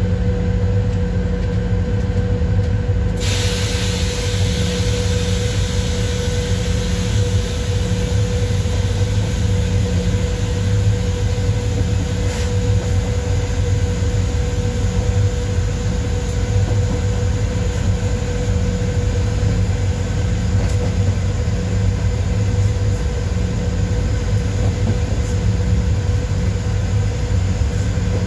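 ET22 electric freight locomotive under way, heard from inside its cab: a steady low rumble of wheels on rail with a steady hum over it. A hiss comes in suddenly about three seconds in and carries on.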